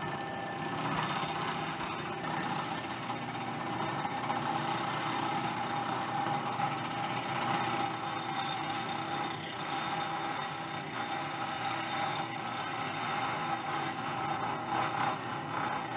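Vertical milling machine running, its end mill cutting the weld bead on a repaired aluminium fin of a Triumph Tiger Cub cylinder head: a steady cutting noise with a constant hum beneath it.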